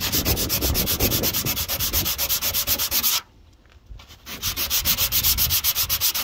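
Sandpaper rubbed back and forth by hand over the rusty steel rear quarter panel of a Ford Cortina Mk4 estate, in quick strokes of about six a second. It pauses for about a second midway, then resumes. The rust is being sanded back towards clean metal.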